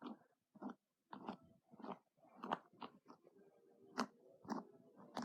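A faint, irregular series of short crunching, rustling noises, about two or three a second, with brief gaps between them.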